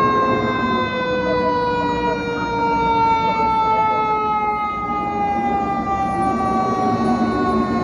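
Fire engine siren approaching: a quick rise in pitch right at the start, then one long wail that slowly falls in pitch, over the rumble of the truck.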